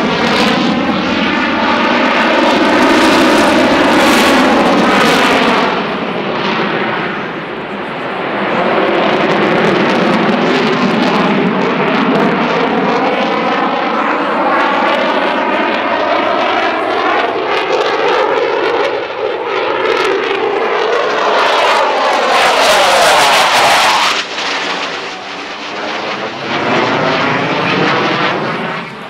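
Eurofighter Typhoon's twin EJ200 turbofan engines at display power as the jet flies past and turns, a loud rush of noise whose tone sweeps up and down as it moves. It dips briefly about seven seconds in and fades somewhat after about twenty-four seconds.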